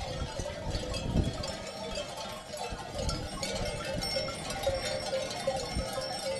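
Bells on a grazing flock of sheep ringing, many at once in an irregular, continuous jangle.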